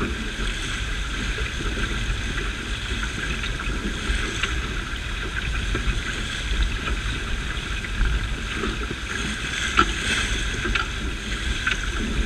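Water rushing and splashing along the hull and wake of a small fibreglass sailboat under sail, with wind buffeting the microphone as a low rumble. One brief louder hit comes about ten seconds in.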